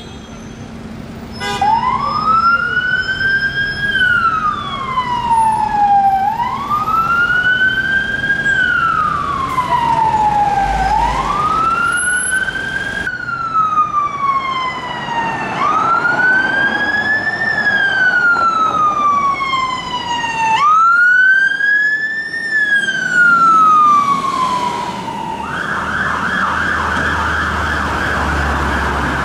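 Emergency vehicle sirens on wail: each cycle rises quickly and falls slowly, about every four seconds. Near the end the siren switches to a fast yelp. Traffic noise runs underneath.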